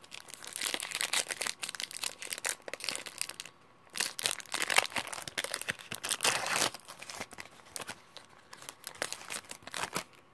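Foil Pokémon XY booster pack wrapper being torn open and crinkled by hand, in two long bursts of crackling with a short pause between, then softer, scattered crinkling near the end.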